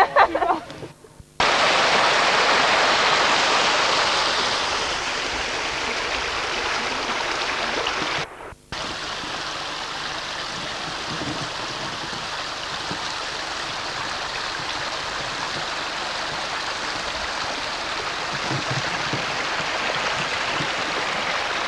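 Steady rushing of water in a rocky stream. It breaks off sharply at edits about a second in and again about eight seconds in.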